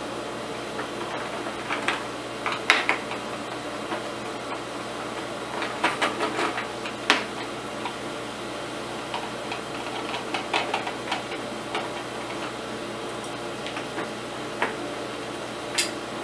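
Scattered small clicks and light knocks of a screwdriver working screws out of a plastic heater casing, and of the plastic housing being handled, over steady background noise. Near the end the plastic front cover is lifted free.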